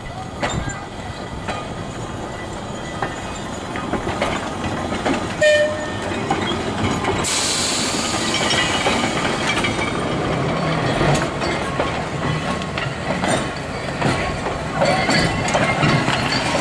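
Unpowered Manx Electric Railway crossbench trailer rolling slowly over tram track and pointwork, its steel wheels clicking over rail joints with a brief flange squeal about five and a half seconds in and a short hiss a little later. Near the end the sound grows louder as the motor tram car comes past.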